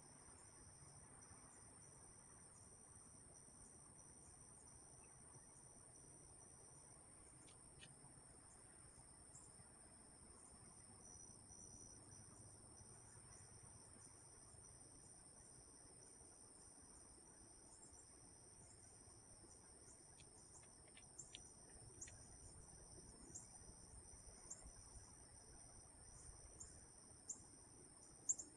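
Faint insect chorus: one continuous high-pitched trill with a second, pulsing insect call repeating a little more than once a second. A few faint clicks come near the end.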